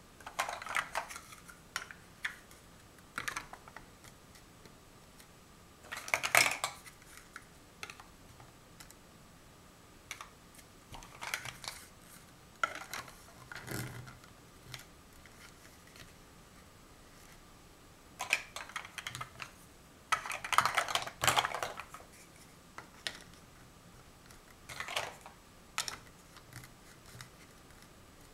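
Large plastic Mega Bloks First Builders blocks clicking and clattering as they are handled and pressed onto one another, in short bursts of several knocks with pauses between; the loudest bursts come about six seconds in and again about twenty seconds in.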